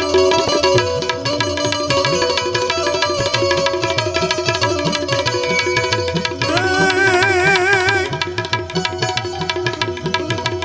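Devotional folk music interlude: steady held melody notes over a fast, busy tabla beat. A wavering, vibrato note rises in about two-thirds of the way through.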